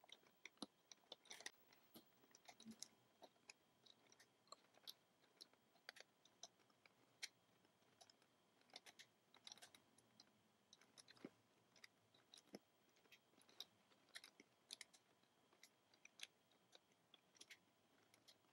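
Near silence, broken by faint, irregular small clicks and snaps, a couple a second, as rubber loom bands are stretched and hooked onto the plastic pegs of a round loom.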